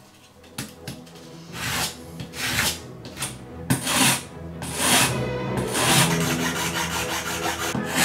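Hand file rasping across olive-wood knife handle scales in repeated uneven strokes that come closer together toward the end. Background music plays underneath.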